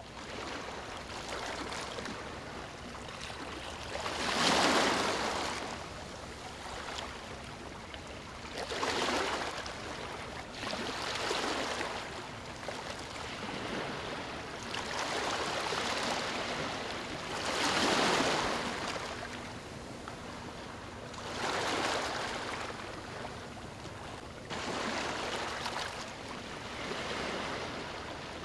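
Ocean waves breaking on a shore, each wave swelling to a loud wash and fading, roughly every three to four seconds. The loudest breakers come about four seconds in and again about eighteen seconds in.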